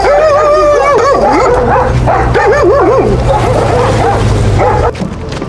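Several caged dogs yelping and whining together, loud, with overlapping wavering cries; the sound cuts off abruptly about five seconds in.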